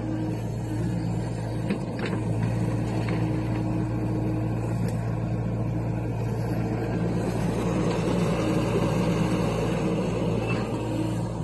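John Deere 60G compact excavator's diesel engine running steadily as it digs and swings its bucket. There are a couple of light knocks about two seconds in, and the engine note swells slightly about eight seconds in.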